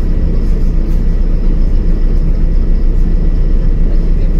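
LiAZ-5292.22 city bus under way: a steady, loud low rumble of engine and road noise, with a faint thin high whine running along with it.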